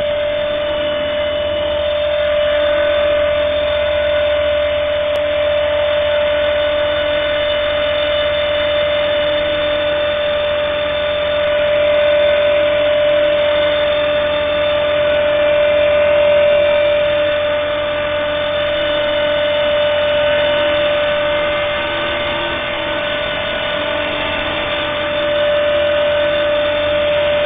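Radio-controlled model helicopter hovering: the motor and rotor give a steady, high-pitched hum that wavers slightly in pitch as the pilot works the controls.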